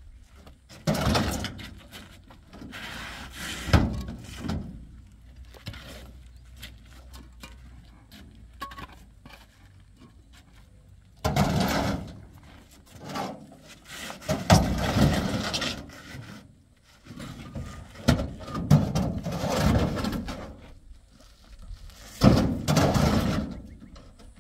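Irregular scraping and rubbing noises in bursts of one to two seconds, with a few sharp knocks, like hard objects being handled and dragged.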